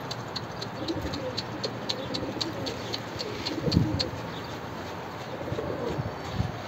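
Domestic pigeons cooing in low, rolling calls, with a quick run of high ticks, about four a second, through the first four seconds.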